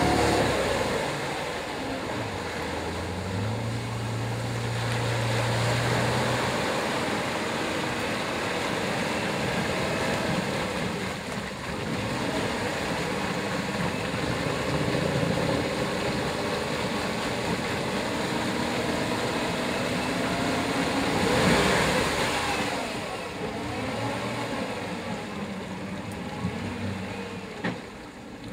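Off-road 4x4's engine running under load as it wades through a muddy water hole, with water churning and splashing around its tyres. The revs rise in a surge about two-thirds of the way through.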